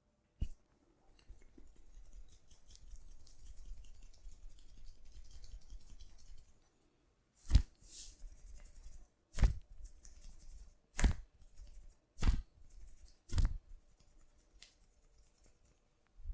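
Barber's hands working a head and body massage: scratchy rubbing, then five loud sharp smacks spaced about one and a half seconds apart.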